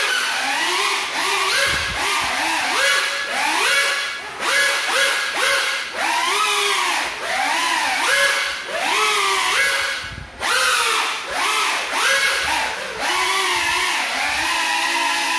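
Micro FPV quadcopter's motors and propellers whining in flight on broken propellers, the pitch swooping up and down in quick surges, about one or two a second, with each throttle change.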